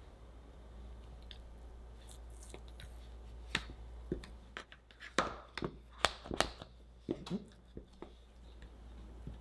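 Plastic dough scraper cutting through chilled chocolate scone dough and knocking on the work mat. After a quiet start, a quick run of about ten sharp taps and clicks comes from around the middle.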